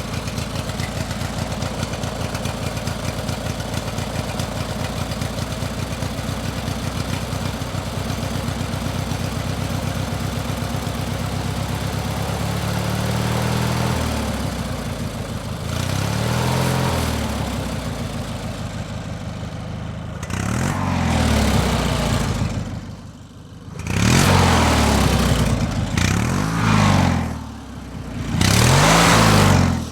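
An engine idling steadily, then revved in a series of blips from about halfway on, each one a rise and fall in pitch, with sharp drops in loudness between the later ones.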